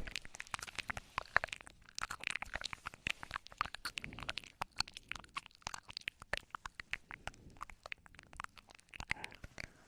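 ASMR mouth sounds close to the microphone: a rapid, irregular run of wet clicks and smacks of lips and tongue, the 'ear eating' style. They thin out near the end.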